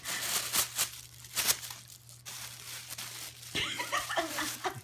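Paper gift wrapping tearing and crinkling in quick bursts as it is pulled apart by hand, over the first two seconds or so. A person's voice comes in near the end.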